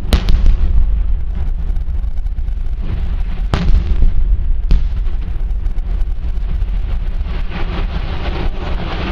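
Demolition explosive charges going off as concrete cooling towers are brought down. There are three sharp bangs close together right at the start and two more single bangs at about three and a half and five seconds, over a continuous low rumble. A rushing hiss builds near the end.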